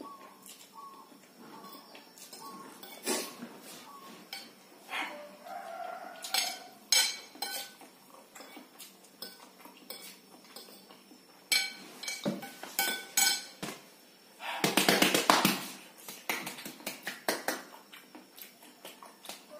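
Metal fork and spoon clinking and scraping against a ceramic plate while a plate of noodles is eaten, in many short, irregular clicks. About three-quarters of the way through comes the loudest sound, a noisy burst lasting about a second.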